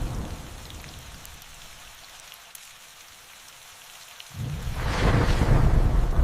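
Thunderstorm: steady rain hiss with scattered drop ticks, while a rumble of thunder dies away over the first second. About four seconds in, a new thunderclap breaks in suddenly and rumbles loudly.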